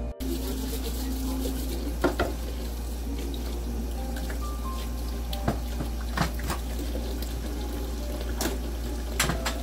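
Kitchen tap running into the sink as dishes are washed by hand, with dishes and utensils clinking against each other and the sink now and then.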